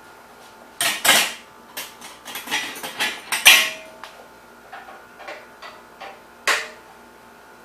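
Metal tools and bicycle front-hub parts clanking and clinking as they are handled: a run of sharp metallic knocks over the first few seconds, the loudest about three and a half seconds in with a brief ring, then a few light clicks and one more knock near the end.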